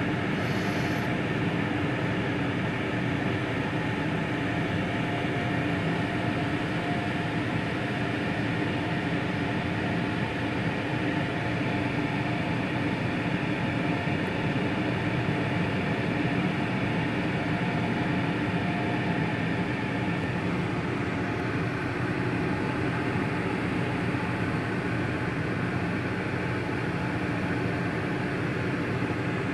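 PDQ ProTouch Tandem automatic car wash running its wash cycle: a steady mechanical drone of its motors and pumps, with several steady hums under an even rushing noise.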